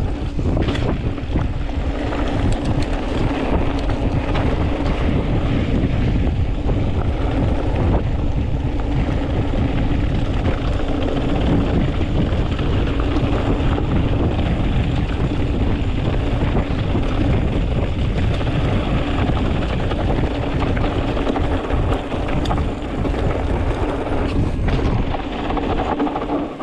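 Wind buffeting the microphone while riding a mountain bike, with a steady low rumble underneath; it drops away near the end.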